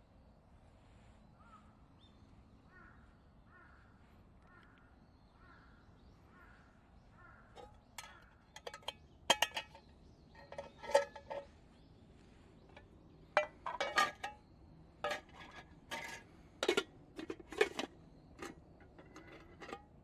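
Wire hanging handle of an aluminium army mess tin clinking against the pot as it is fitted onto the brass side lugs: a run of sharp, irregular metallic clicks from about a third of the way in. Before that, a bird calls over and over, about one short call every 0.7 s.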